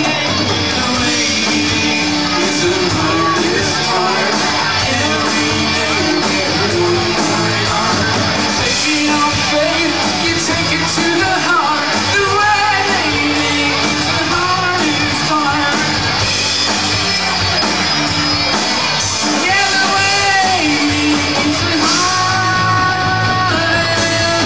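Live rock band playing loud: electric guitars and drums with a singer.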